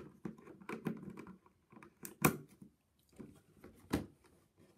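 Irregular clicks and light knocks of small objects being handled on a desk, with two sharper knocks about two and four seconds in.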